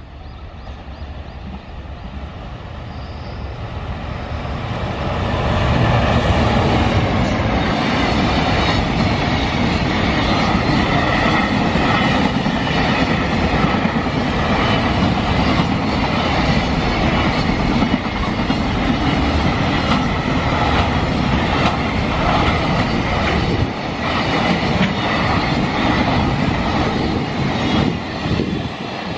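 JR Freight container train passing close by: the locomotive's approach grows louder over the first five or six seconds, then a steady run of wheel noise and clickety-clack over the rail joints as the container wagons go past.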